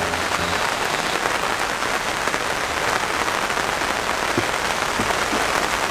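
Steady monsoon rain falling on tree leaves: an even hiss of drops.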